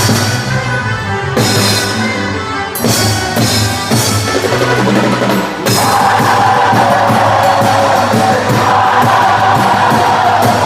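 Loud music with drums and a strong bass line. About six seconds in, the mix turns denser and steadier.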